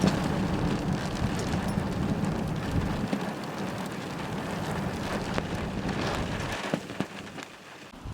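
Rainstorm: heavy rain pouring down, with a low rumble through the first three seconds that then dies away. The rain noise eases off about six and a half seconds in.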